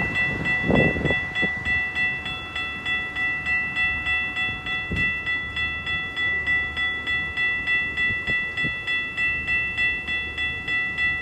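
Railway level-crossing warning bell ringing with rapid, evenly spaced strikes, signalling that a train is approaching.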